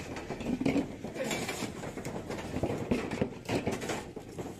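Coconuts knocking and thudding as they are tossed into plastic basins, an irregular run of knocks that comes thickest a little past the middle.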